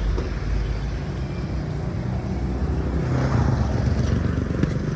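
Motor traffic on a wide road: vehicles running past, with one passing vehicle swelling a little louder about three seconds in.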